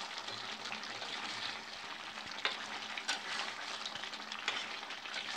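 Thick curry gravy sizzling and bubbling in a kadai as it is stirred with a spatula, with a few sharp clicks of the spatula against the pan.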